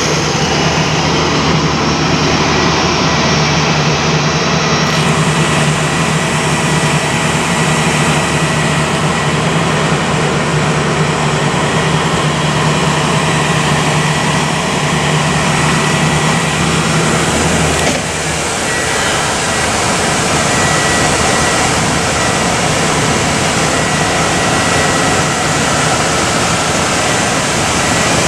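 2008 Ford F-450 ambulance idling: a steady engine hum with a thin, constant high whine over it. The low hum drops somewhat about two-thirds of the way through.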